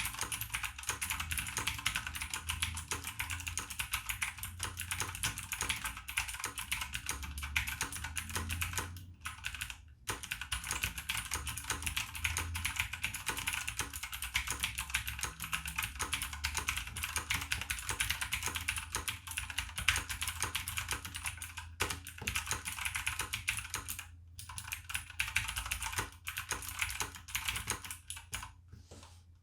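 E-yooso Z88 mechanical keyboard with blue clicky switches being typed on steadily, a fast run of crisp clicks with a few brief pauses.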